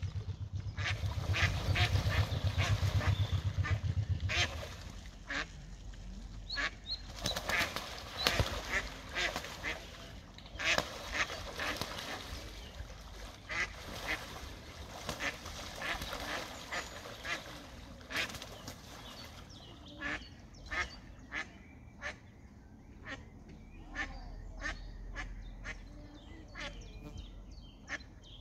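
A duck quacking over and over, with splashing, as a mute swan attacks it; the calls thin out after about 20 seconds. A low rumble runs under the first few seconds.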